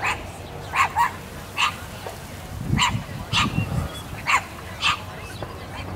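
A dog barking repeatedly, about eight short barks spread over six seconds, some in quick pairs.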